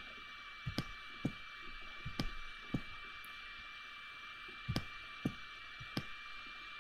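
Computer mouse clicking about ten times at irregular intervals, over a steady faint hiss with a thin high tone.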